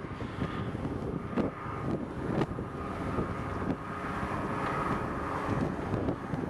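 Wind buffeting the microphone in gusts over the faint, steady drone of a powered parachute's engine flying in the distance.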